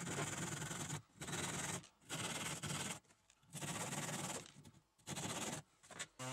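Thin handsaw sawing through wooden dowel ends that stick up from the slats, cutting them off flush. The sawing comes in about five rasping spells of roughly a second each, with short pauses between them.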